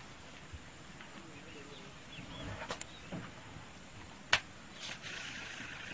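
Faint outdoor background noise with a few sharp clicks, the loudest a single sharp snap a little past halfway. A steady high hiss comes in near the end.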